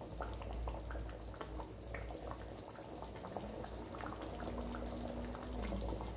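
Thick coconut-milk fish curry coming to the boil in an aluminium pot, with many small irregular bubbles popping, over a steady low hum.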